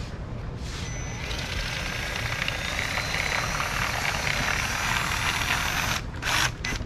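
Razor blade scraping out a tight hole in a plastic dash bezel to enlarge it: a continuous scratchy scraping with faint squeaks for about five seconds, then a few short scrapes near the end.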